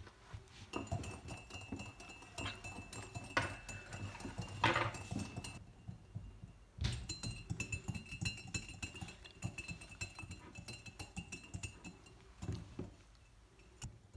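Small metal wire whisk rattling and clinking quickly against the inside of a ceramic mug as it beats dish soap, in two bouts with a short pause about halfway.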